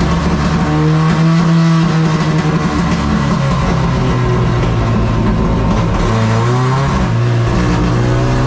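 Carbureted four-cylinder engine of a Chevrolet Caravan race car, heard from inside the car, running hard at racing speed. Its revs climb and fall, with a pitch drop about two seconds in and another rise and fall near the end.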